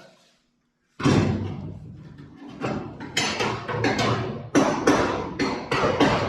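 Body hammer blows on a steel body panel's flange, roughly two a second and unevenly spaced, each with a metallic ring that fades; the metal is being worked outward. The blows start about a second in.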